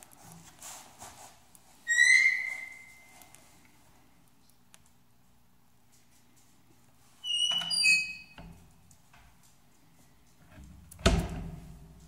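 Wood stove door squeaking on its hinges in short high squeals, once about two seconds in and twice more around the middle. Near the end it shuts with a heavy metal thump.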